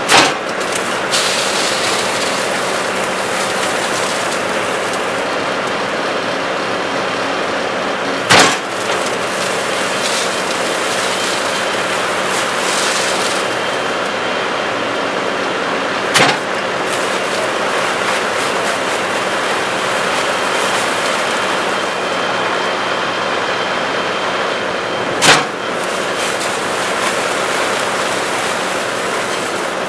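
Skid steer engine running steadily, driving the MegaMixer's hydraulic steel auger as it churns dry concrete mix in the bucket: a constant loud noise. Sharp knocks come about every eight seconds, four in all.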